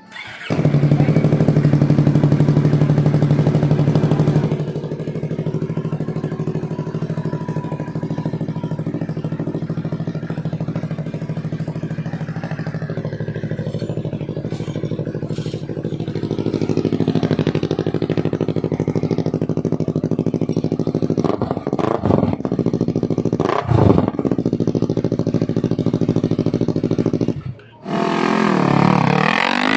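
Yamaha R3 321 cc parallel-twin engine running through a gutted stock muffler with the catalytic converter removed, holding a steady note that is louder for the first few seconds. Two quick revs rise and fall a little past twenty seconds, and after a short break near the end the pitch swoops down and back up.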